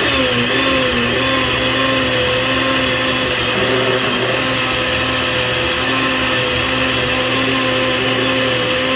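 Countertop blender running steadily, its motor giving a steady hum with a high whine as it purées a tomatillo, avocado and jalapeño salsa verde.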